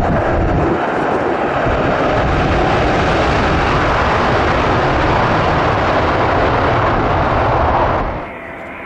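Loud, steady jet roar from a Eurofighter Typhoon's twin EJ200 turbofan engines, dropping off abruptly near the end.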